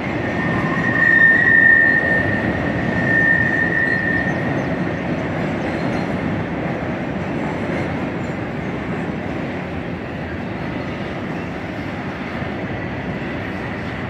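BNSF double-stack intermodal freight cars rolling over a steel truss bridge in a steady rumble, with a high, steady wheel squeal over the first few seconds.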